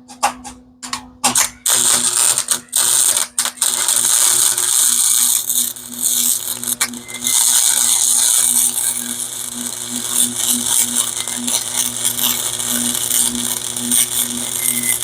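Electric welding arc crackling as a bead is laid on a steel shock mount: a few short stop-start bursts at the beginning, then about a second and a half in a continuous sizzling crackle over a steady low hum from the welder.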